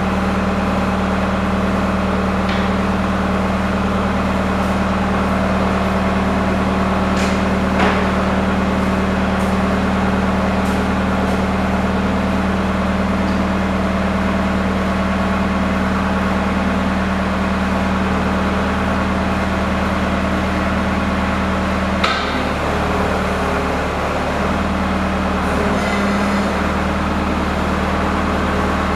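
Engine running steadily, with a few sharp metallic clanks, one about eight seconds in and another about twenty-two seconds in, where the engine note shifts.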